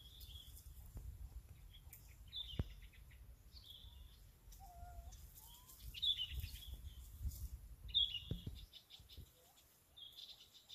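A bird chirping repeatedly: short high chirps, each with a quick rattling trill after it, about every two seconds, over a low rumble.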